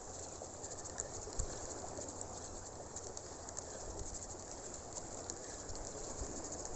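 Wind buffeting the microphone in uneven low rumbles, one stronger gust about a second and a half in, over a steady outdoor rushing hiss with faint crackling.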